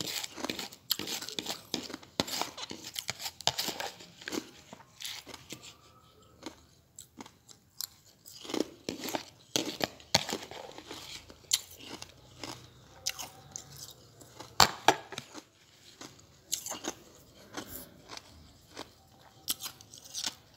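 Ice chips being crunched and chewed in the mouth: a run of sharp, irregular crunches, sparser for a couple of seconds about a third of the way in.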